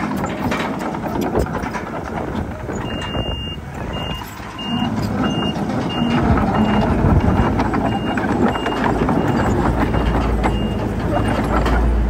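Reversing alarm on heavy machinery: a high beep begins about three seconds in, one longer tone and then short beeps about one and a half a second. Heavy diesel engine noise runs underneath and grows louder partway through.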